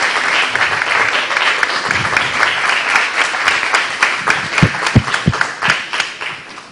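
Audience applauding: dense clapping that thins to a few scattered claps and fades away near the end.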